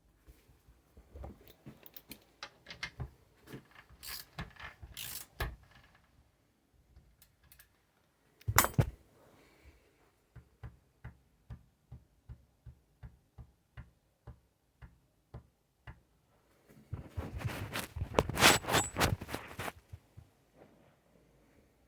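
Honda CBR954RR inline-four engine internals knocking in a slow, regular rhythm of about two knocks a second, with spells of louder clattering and one sharp hit: piston slap, the piston rocking and striking its cylinder wall.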